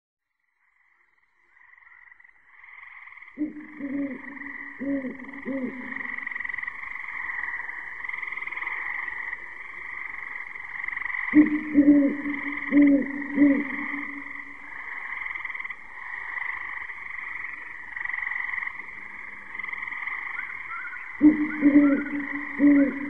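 Chorus of frogs fading in about two seconds in, a steady massed calling, with a deep-voiced frog croaking in runs of about four croaks three times, roughly every eight to ten seconds.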